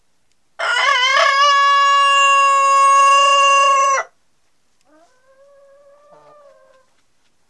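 Rooster crowing: one loud, long crow held at a steady pitch for about three and a half seconds, cutting off sharply, followed about a second later by a fainter crow lasting about two seconds.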